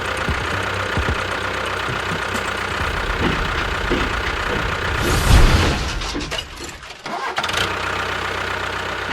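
The motor of a miniature DIY construction machine runs steadily, with a louder low surge about five seconds in and a few brief dips around seven seconds.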